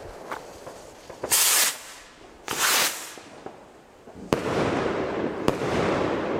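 Zink Z1 bouquet firework rocket in flight: two loud hissing rushes in the first three seconds, then a sharp bang about four seconds in as it bursts into stars, a second crack about a second later, and a lingering wash of sound after the burst.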